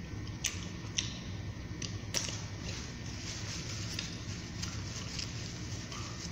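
Eating chicken wings up close: wet chewing and mouth smacks, with a string of short, sharp clicks, the loudest just over two seconds in, over a steady low room hum.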